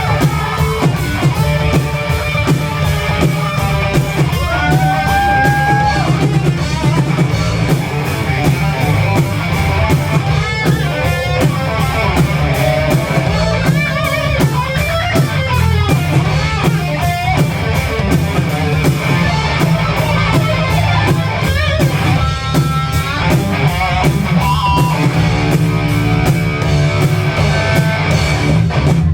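Rock band playing live: guitar over a drum kit, loud and continuous.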